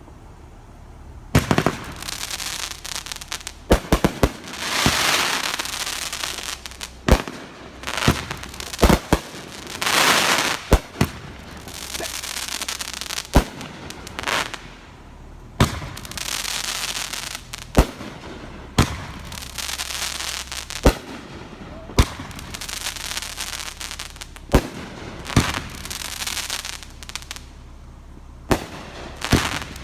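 Consumer fireworks going off in a steady run: sharp bangs every second or two, starting about a second in, several of them followed by a crackling, hissing trail.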